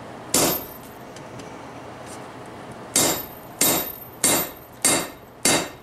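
Hand hammer striking a punch held on a red-hot steel bar on an anvil, punching a hole through the hot bar: one blow, then after a pause five blows about two-thirds of a second apart, each with a short metallic ring.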